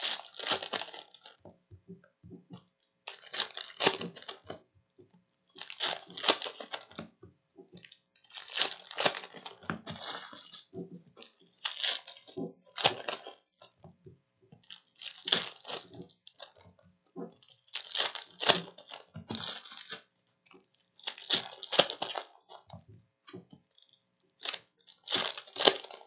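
Foil trading-card pack wrappers (2017-18 NBA Hoops basketball packs) being torn open and crinkled by hand, in short bursts every two to three seconds.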